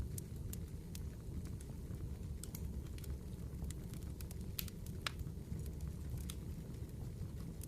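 Firewood burning: irregular sharp crackles and pops over a steady low rumble, with the loudest pops about halfway through.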